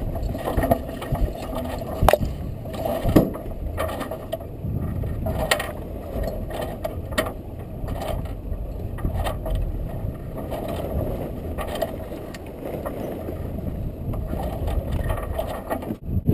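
Steady rushing of wind and sea on a sailing yacht's foredeck, with irregular clicks and knocks from the rigging and headsail hardware while the headsail is being brought down off its roller-furler foil.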